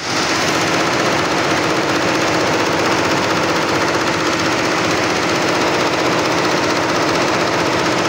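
Textile machine working striped cloth, running with a loud, rapid, even mechanical clatter.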